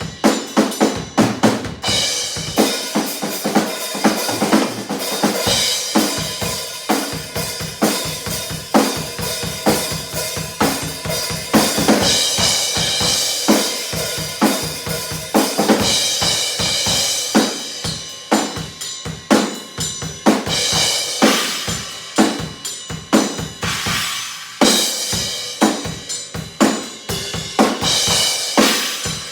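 Drum kit fitted with two bass drums, played continuously: rapid bass drum and snare hits under a steady wash of cymbals.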